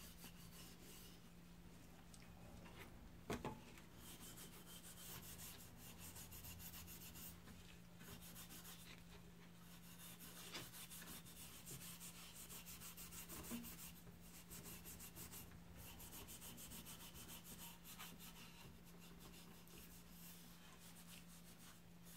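Steel wool wet with paint stripper scrubbed back and forth over a wooden molding plane, faint repeated rubbing strokes that strip old finish and grime off the wood. A steady low hum runs underneath, and there is a light knock about three seconds in.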